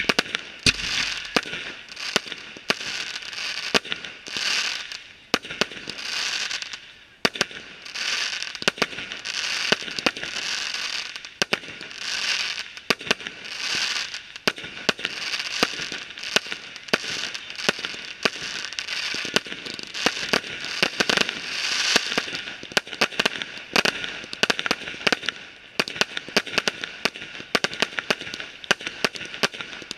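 Fireworks display going off continuously: rapid sharp bangs over swells of dense crackling and hiss. Near the end the bangs come more separately.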